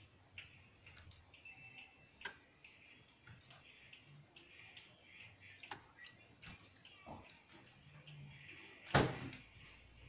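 Javan grey-throated white-eye (opior jawa) hopping about its bamboo cage: a scatter of light clicks and taps from its feet on the perches and bars, with a louder knock about nine seconds in. A few faint short chirps come now and then.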